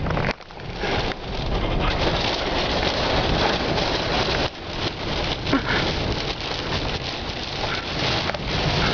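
Heavy wind-driven rain pelting a vehicle's windshield and body, heard from inside the cabin close to a tornado: a dense, loud crackling hiss that drops away briefly about half a second in, then comes back.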